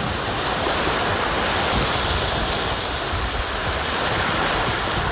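Sea surf washing steadily, with a low, uneven wind rumble on the microphone.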